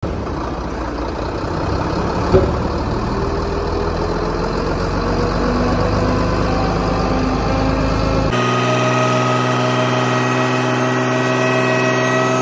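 Nissan hook-lift truck's diesel engine running under load while its hydraulic arm works the tilted dump body, the pitch rising slowly, with a single knock about two seconds in. Just past eight seconds the sound changes abruptly to a steadier whine with several held tones.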